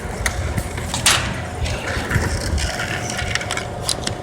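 Scattered clicks and knocks of metal tools being handled, with a brief rustle about a second in and a faint steady hum underneath. There is no hammering of an impact wrench in use.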